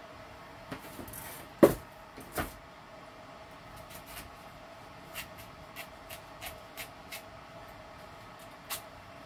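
Kitchen knife cutting watermelon rind over a plate: a loud knock about a second and a half in and another shortly after, then a run of light clicks, about three a second, as the blade works through the rind.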